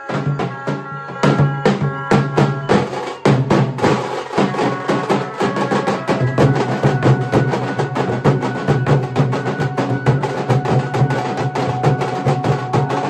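Nashik dhol ensemble: several large barrel dhols beaten with sticks in a fast, loud, driving rhythm of dense strikes, with steady ringing tones held over the drumming.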